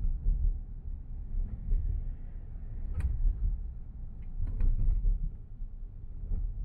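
Low, steady rumble of a car driving, heard from inside the cabin, with a few faint clicks or knocks, the clearest about three seconds in.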